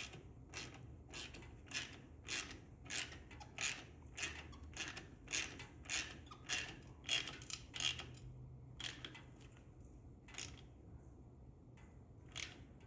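Hand ratchet clicking in short strokes as cover bolts are snugged up, about two clicks a second. The clicks thin out and stop near the end.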